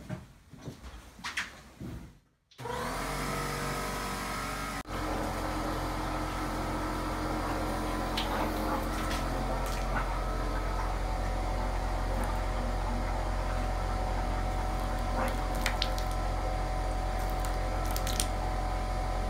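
Electric air compressor starting up after a few light clicks, about two and a half seconds in, then running steadily with a brief dropout near five seconds. It is blowing air into the home's cold-water plumbing to push the water out for winterizing.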